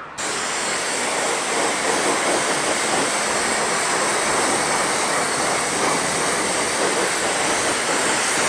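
Car-wash pressure-washer lance spraying a jet of water onto a motorcycle: a steady, even hiss that starts suddenly as the trigger is pulled and does not vary. The owner calls the pressure weak.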